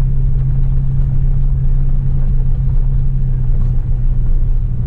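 A four-wheel-drive vehicle's engine running steadily as it drives, a low, even drone with a rough rumble beneath it.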